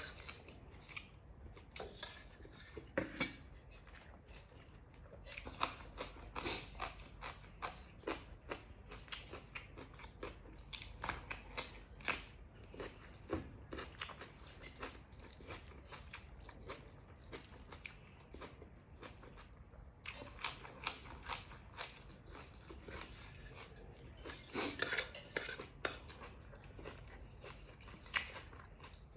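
Eating sounds: a spoon clinking and scraping on a plate again and again, with close chewing and crunching of the food.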